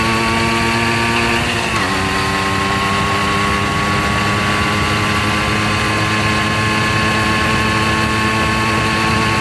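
Simson S51 B moped's 50 cc single-cylinder two-stroke engine idling steadily, with a brief wobble in engine speed about two seconds in.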